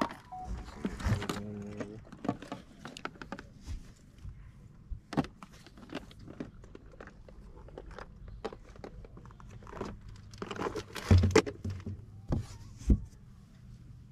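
Fishing tackle being handled on a boat: scattered clicks, rattles and knocks of tackle boxes and gear, with a cluster of louder knocks about ten to eleven seconds in.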